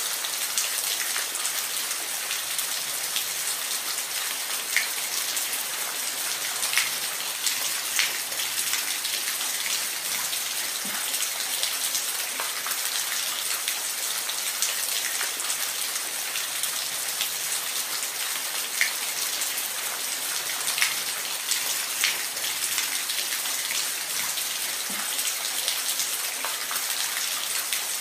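Steady rain falling, an even hiss with scattered louder drops ticking on a surface.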